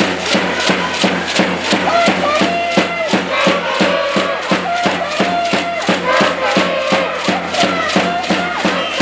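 A school cheering section chanting in unison over a fast, steady percussion beat of about four strikes a second.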